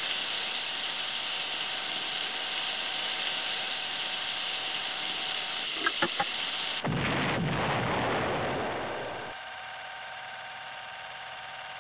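Steady hiss, then a few sharp pops about six seconds in, followed by a sudden louder, deeper rushing noise that fades out about two seconds later to a fainter hiss.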